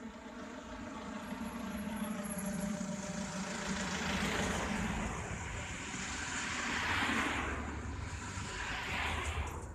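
Cars and a van driving past on the road: an engine hum at first, then the engine and tyre noise of passing vehicles swelling and fading about three times, loudest about seven seconds in.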